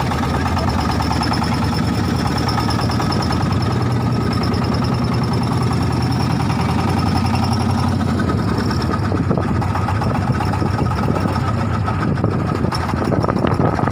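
Boat engine running steadily with a fast, even chugging.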